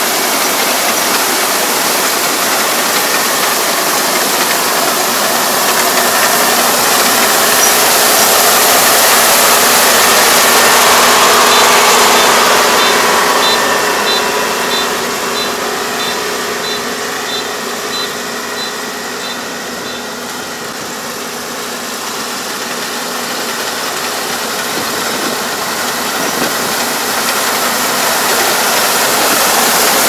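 Rice combine harvester running as it cuts flattened rice, its engine and cutting and threshing machinery making a dense, steady mechanical noise that swells, fades and swells again as it moves. A run of short, evenly spaced high beeps sounds midway.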